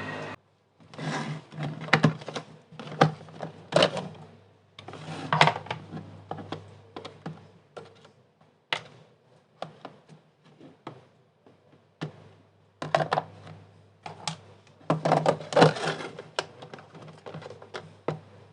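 Irregular clicking and tapping in quick clusters, with short pauses between, like hands handling small hard objects or typing.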